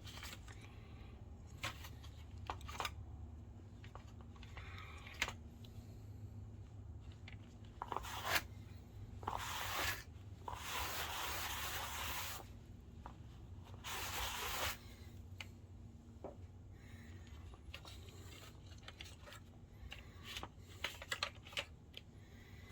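Cloth wiping and scrubbing dirt off the plastic and metal parts inside a DLP projector: rubbing and scraping with small clicks and taps, and a few longer bursts of rasping noise about ten and fourteen seconds in.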